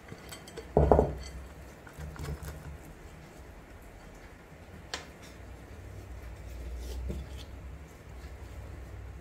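Glass mixing bowl handled on a silicone baking mat while its inside is brushed with a silicone brush: a loud knock about a second in, a sharp click about halfway, and soft rubbing and handling noise.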